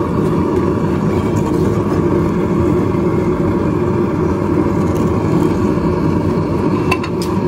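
Gas forge burner running with a steady rushing noise. Near the end come two light metal clinks of tongs against the spike at the forge mouth.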